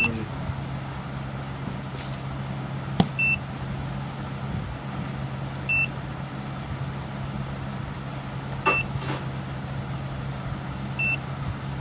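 Keypad beeps of a Softland handheld bus ticketing machine as its keys are pressed: five short, high beeps a few seconds apart, with a few sharp clicks. A steady low hum runs underneath.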